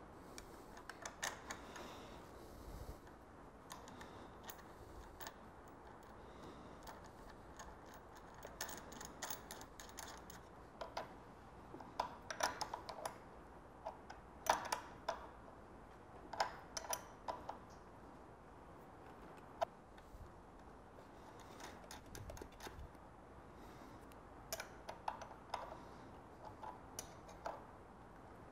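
Faint, scattered metallic clicks and ticks of a hex key and small bolts and washers being handled and turned while the handlebar clamp hardware is fitted from underneath. The clicks come in short clusters, busiest midway through.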